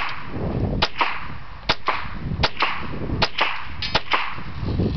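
.22 caliber Marlin rifle firing five shots in quick succession, just under a second apart, each sharp crack followed by a short echo.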